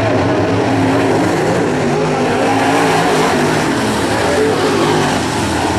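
Several crate late model race cars' V8 engines running on a dirt oval at once. Their overlapping engine notes rise and fall as the drivers get on and off the throttle.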